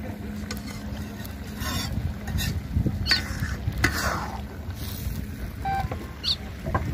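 River boat ambience: a low steady rumble with scattered knocks and clicks and a few short high chirps.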